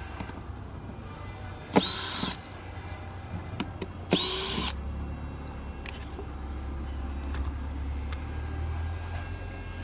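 Cordless drill backing screws out of the wooden cover board of a shipping box of bees: two short bursts a couple of seconds apart, each spinning up quickly to full speed. A low steady rumble follows.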